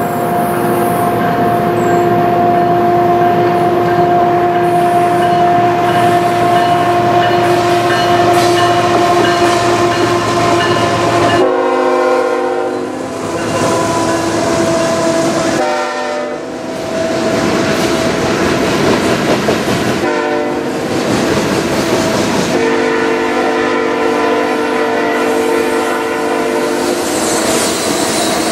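A CN freight train's horn sounds a long steady blast, then breaks off in shorter, changing tones as the train's boxcars and flatcars roll past with their wheels clacking on the rails.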